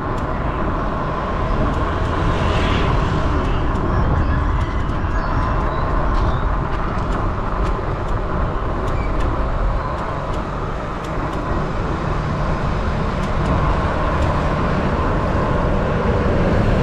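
Wind rushing over the microphone of an action camera on a moving bike, with steady low road rumble. A bus passes close near the end.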